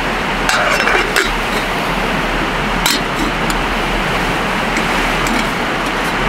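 A mont-bell Alpine kettle, small and aluminium, set onto a gas canister camp stove: its metal clinks against the pot supports a few times in the first three seconds, with one sharp click about three seconds in. A steady rushing noise runs underneath.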